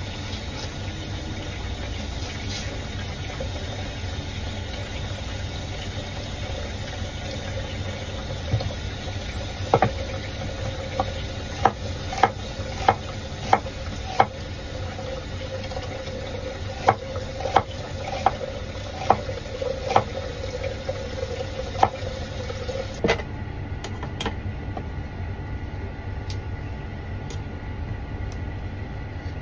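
Chef's knife slicing an onion on a wooden chopping board: a series of sharp knocks as the blade hits the board, roughly one every half second to second. A low steady hum lies underneath.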